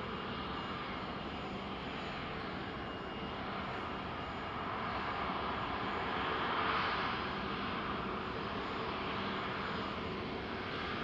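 Jet engines of a Boeing 767-300 freighter coming in to land, a steady rush with a faint whine. It swells to its loudest about six to seven seconds in, then eases off.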